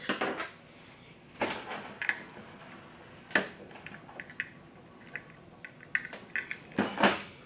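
A small hand pick clicking and scraping inside the plastic housing of a motorcycle fuel pump assembly, in scattered light clicks with a few sharper taps.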